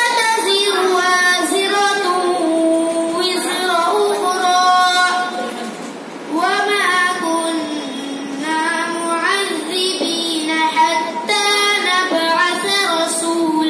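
A boy's melodic Quran recitation (tilawat) in Arabic, long drawn-out notes with ornamented bends in pitch. There is a short break between phrases about six seconds in.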